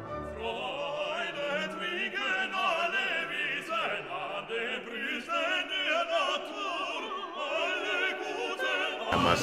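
Background music: a classical operatic voice singing with vibrato over orchestral accompaniment. It gives way to louder sound just before the end.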